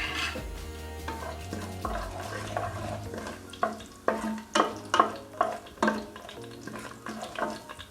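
A spoon stirring whole spices frying in ghee and oil in a pressure cooker, with repeated scrapes and knocks against the pot over a light sizzle.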